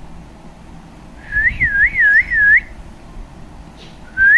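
A high warbling whistle, its pitch wavering quickly up and down, sounded for about a second and a half, then starting again near the end.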